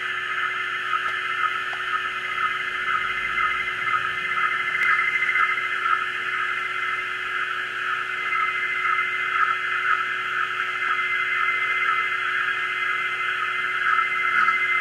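Audio output of a Yaesu FRG-7 shortwave receiver tuned to the JMH Tokyo radiofax signal: a steady hiss of band noise, cut off above and below by the receiver's filter. The weak fax signal is buried in the noise because propagation is very marginal. A faint steady low tone runs underneath.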